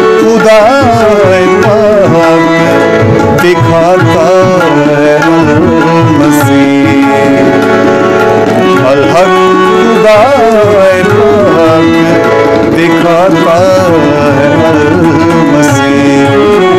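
Christian devotional song (geet) in South Asian style: tabla keeps a steady rhythm under a melody that bends up and down over held notes.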